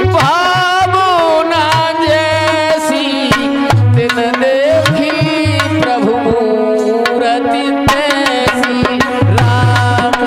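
Indian folk music: hand drums beat a rhythm of repeated deep strokes and sharp slaps under a held, wavering melody line.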